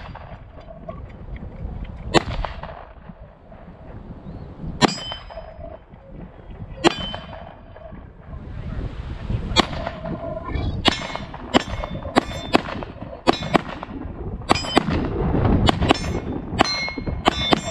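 9mm pistol shots, with steel target plates clanging as they are hit. The first few shots come singly, a couple of seconds apart; from about ten seconds in they come in a quick string of a dozen or so.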